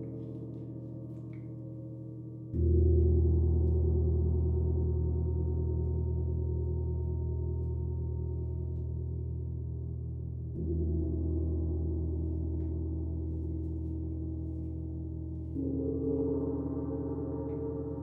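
Gong struck softly three times, about two and a half seconds in, about ten and a half seconds in and again near the end. Each stroke blooms into a deep, low ringing that slowly fades under the next. The first stroke is the loudest.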